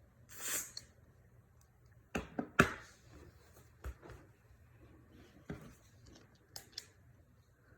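Light handling noises: a soft rustle near the start, then scattered sharp clicks and knocks. Two come close together a little after two seconds in, the second the loudest, and a few fainter ones follow.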